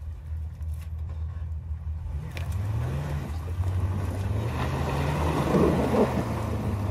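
Jeep Wrangler engine pulling under load as it crawls off-road through brush, revs rising about two seconds in, with a rush of tyre and brush noise growing louder around five to six seconds.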